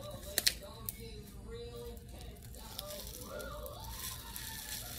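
A few sharp crinkles and clicks from a small plastic packet of dry water beads being handled, strongest about half a second in, over faint background voices and music.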